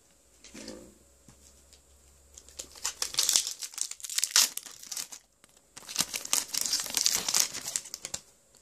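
Foil wrapper of a Pokémon booster pack crinkling and tearing as it is opened by hand, in two spells of crackling a few seconds long, the first starting about two and a half seconds in.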